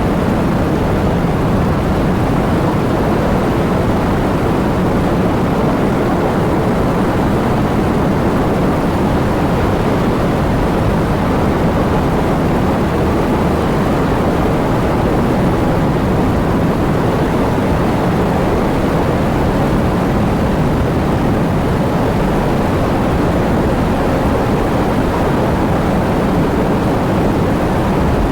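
Heavy rain falling as a steady, dense roar of noise, deep-toned and even throughout, with no separate drops standing out.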